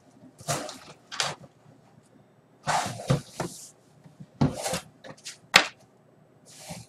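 A cardboard model-kit box being handled and opened: a string of short rustles and scrapes, with a sharp click about five and a half seconds in.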